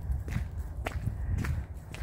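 Footsteps of a person walking, about two sharp steps a second, over a steady low rumble.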